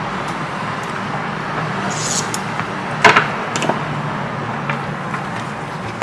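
Steady background hiss with a few handling clicks and knocks about halfway through, the loudest about three seconds in, as a handheld digital multimeter is picked up off the bench.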